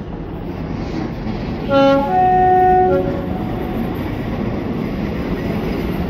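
Diesel locomotive sounding its two-tone horn about two seconds in, a short low note followed by a longer higher one, over the steady rumble of a waiting train's engine.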